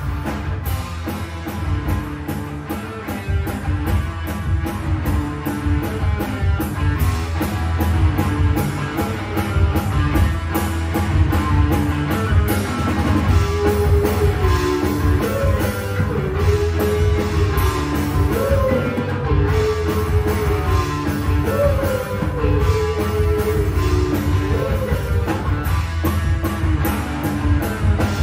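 Live rock band playing: electric guitar, bass guitar and drum kit, loud and steady. About halfway through, a gliding melody line comes in over the band.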